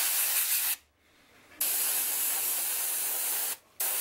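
Dual-action airbrush spraying paint, a hiss that starts and stops abruptly as the trigger is worked: a short burst, a pause about a second in, a burst of about two seconds, then a brief break and a short burst near the end.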